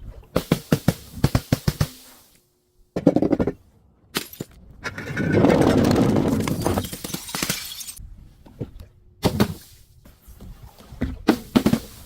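Glass bottle being broken and crushed: a quick run of sharp cracks, then single impacts and a long stretch of grinding crunches as the pieces are crushed.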